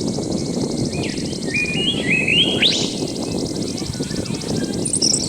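Birds calling: a run of short stepped whistled notes about a second in, a quick rising note near three seconds, and high chirps near the end. Under the birds runs a high, fast, pulsing insect trill and a steady low rumble of background noise.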